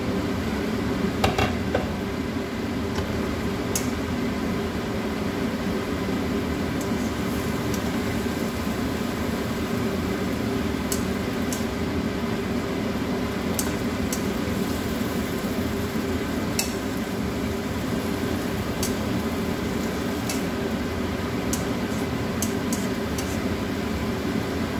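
Spatula and glass lid clicking and scraping against a nonstick frying pan while a stir-fry is turned, over a steady low hum. There is a sharper clink about a second in as the lid comes off.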